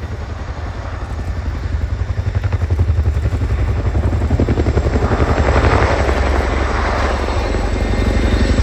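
Boeing Chinook HC.6 tandem-rotor helicopter in flight, its rotors beating fast and evenly. The beat grows louder over the first few seconds, with a swell of rushing noise over it from about four to eight seconds in.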